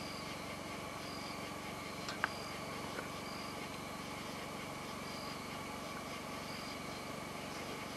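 Night insects chirping: short high chirps repeating about once a second over a steady background hiss, with a single sharp click about two seconds in.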